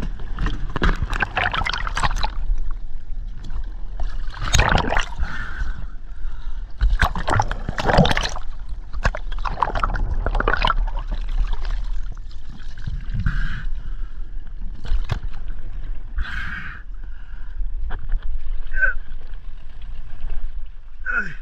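Sea water splashing and sloshing against the hull of a small wooden boat in several bursts, with gurgling while the microphone is under the surface.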